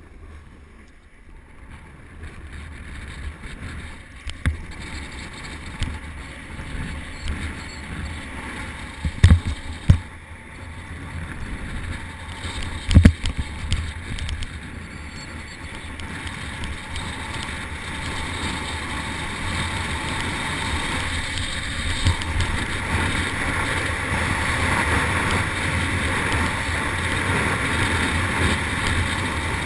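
Snowboard sliding fast over snow, with rushing wind on a helmet-mounted camera, growing steadily louder as the board picks up speed. A few sharp thumps near the middle, the loudest twice around nine and thirteen seconds in.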